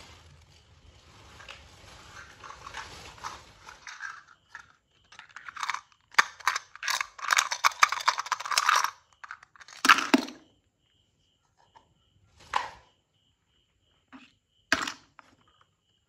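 Plastic toy kitchen pieces being handled: small plastic pieces rattle and click in a plastic toy frying pan for several seconds. One louder plastic knock follows, then a couple of single taps as toys are set down.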